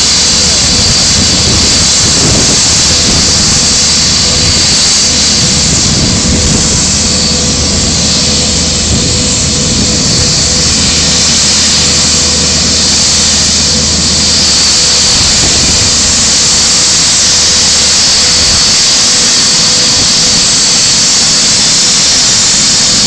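Bell 206 L4T TwinRanger helicopter running on the ground on its skids: a loud, steady turbine whine over the rotor noise. A low rumble drops away about three-quarters of the way through while the whine carries on.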